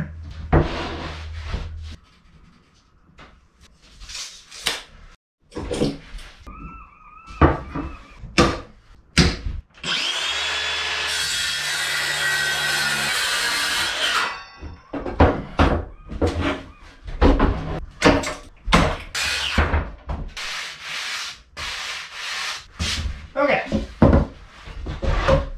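Circular saw cutting a sheet of plywood for about four seconds around the middle, a steady run that stops abruptly. Before and after it there are knocks and clatter as the wood is handled and set down.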